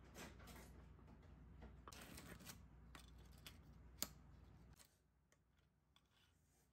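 Quiet tabletop food-handling sounds: a wooden spoon scraping and tapping flaked salmon onto a ceramic plate and the rustle of a plastic bag of crackers, with one sharp tap about four seconds in as a cracker is set down on the plate.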